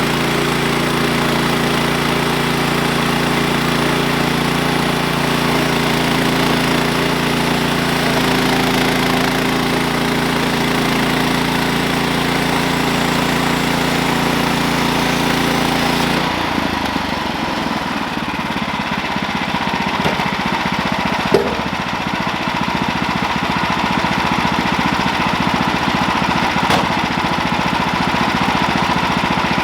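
Portable bandsaw sawmill with its gas engine running steadily. About halfway through, the sound changes abruptly: the high hiss drops away and the engine note shifts.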